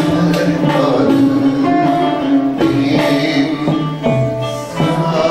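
Male solo voice singing a Turkish classical song in makam hicazkar, holding long notes, over instrumental accompaniment of plucked strings and light percussion.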